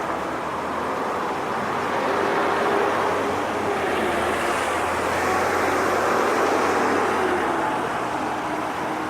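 A car passing on the road, its engine hum swelling and then fading out near the end. Under it runs the steady rush of a small stream waterfall.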